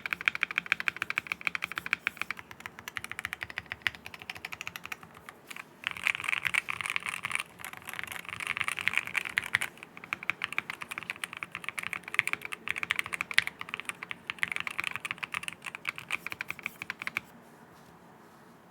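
Fast typing on a QK60 mechanical keyboard fitted with Akko Rosewood linear switches on an aluminium plate, fully foamed, giving a deep, muted key sound. The typing runs in rapid streams, eases off briefly about five seconds in, and stops near the end.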